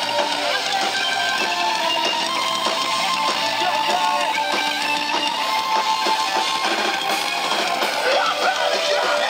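A live heavy rock band playing through stage PA speakers, electric guitars carrying held, ringing notes over the full band.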